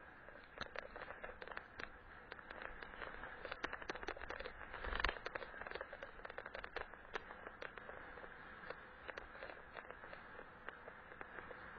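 Bicycle riding over a snow-covered dirt road, recorded from the bike itself: a steady rush of tyres and wind with frequent irregular clicks and rattles from the bumpy ride, and one louder knock about five seconds in.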